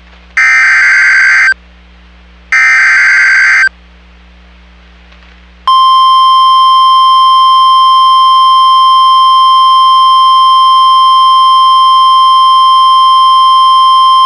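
Weather-radio emergency alert signal: the last two of three SAME digital header bursts, each a harsh data squeal lasting about a second with a second's gap between. After a pause of about two seconds comes the steady warning-alarm tone near 1 kHz, held for about nine seconds. This tone announces a new warning.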